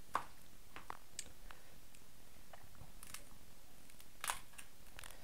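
Cooked king crab shell cracking and snapping as it is pulled apart by hand: a scatter of sharp cracks and small crackles, the loudest just after the start and another about four seconds in.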